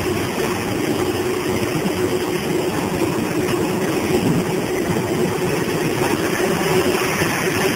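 Grape destemmer and pressing line machinery running: a steady motor hum with one held tone over a dense, constant rattle.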